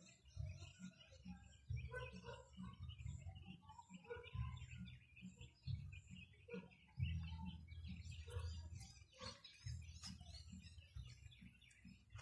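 Faint chirping and twittering of small birds, over an intermittent low rumble.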